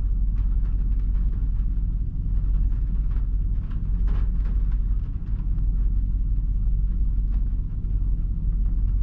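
A 2008 Nissan Titan's 5.6-litre V8 running with a steady low rumble and faint irregular ticks. The engine is misfiring on several cylinders, which the misfire counters show on cylinders 2, 3, 6 and 8.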